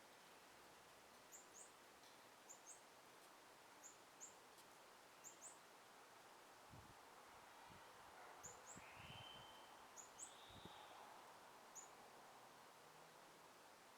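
Faint outdoor ambience of songbirds: short high chirps, mostly in quick pairs, repeating every second or so, with two longer whistled notes near the middle, over a soft steady hiss. A few brief low bumps of wind on the microphone come around the middle.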